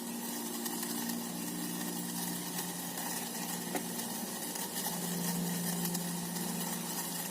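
Water at a rolling boil in a pot on a gas stove, over a steady low hum.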